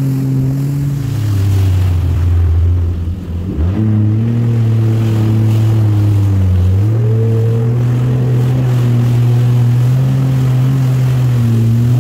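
Jet ski engine running, its pitch holding steady, dipping and climbing back about four seconds in, and rising again about seven seconds in as the throttle changes, over a hiss of water spray.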